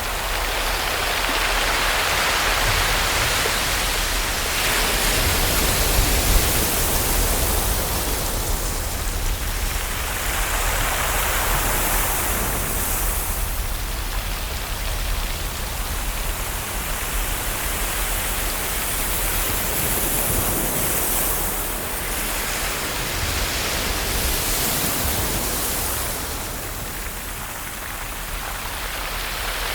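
Ocean waves washing onto a shore: a continuous rush of surf that swells and fades every few seconds.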